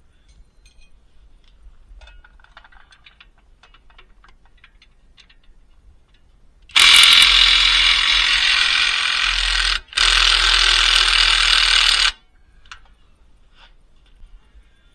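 Hercules cordless impact tool hammering on a suspension bolt in two runs, about three seconds and then two seconds, with a brief break between; light clicks of hand tools being handled before and after.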